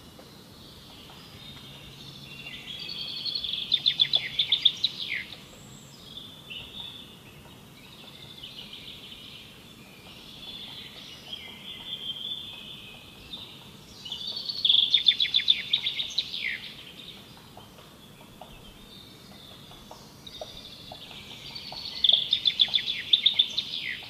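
Songbird singing: three loud phrases of fast, rapidly repeated notes, each ending in a quick falling note, about ten seconds apart, with quieter warbling phrases between them.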